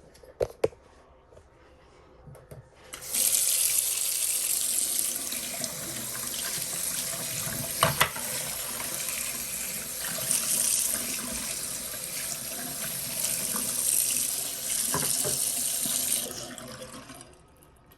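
Water running from a tap into a container being refilled: it starts about three seconds in, runs steadily with one knock partway through, and stops near the end.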